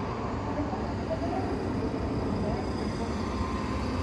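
Steady road-traffic noise heard from inside a car's cabin, with loaded trucks passing on the road ahead.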